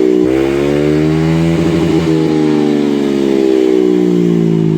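Yamaha Aerox 155 scooter's single-cylinder engine revved and held at high rpm through an open TRC Racing exhaust with the silencer removed. The pitch dips briefly at the start, climbs back, wavers about two seconds in, and then sags slowly near the end.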